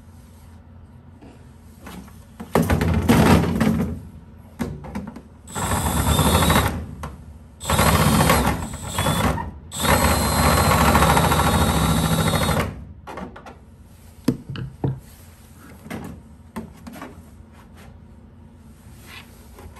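Milwaukee M18 cordless drill running in four bursts, from about one to three seconds each, as it enlarges and smooths a hole in thin aluminium fuselage skin. A few light taps and clicks follow once the drill stops.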